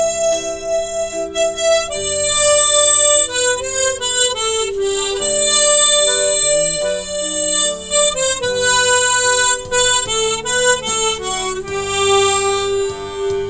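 A G harmonica plays a slow melody one note at a time, over a sustained backing accompaniment.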